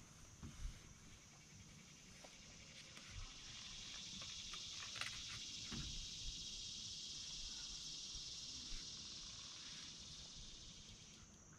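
Faint insect chorus: a high steady buzzing drone that swells over several seconds and fades near the end, with a few soft knocks.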